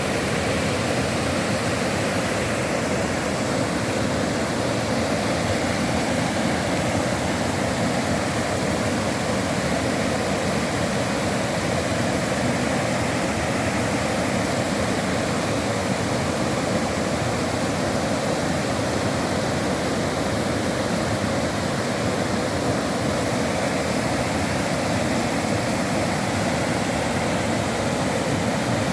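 Steady rush of flowing water, an even, unbroken sound throughout.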